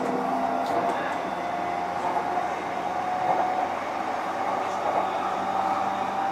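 Running sound inside a JR East E531-series EMU motor car: traction-motor and VVVF inverter whine slowly rising in pitch as the train picks up speed, over steady wheel and rail noise, with a few light clicks about a second in.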